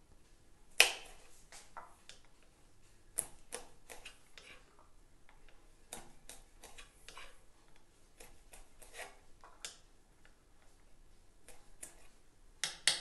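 Knife finely chopping peeled almonds on a wooden cutting board: irregular sharp knocks of the blade against the board, the loudest about a second in and another near the end.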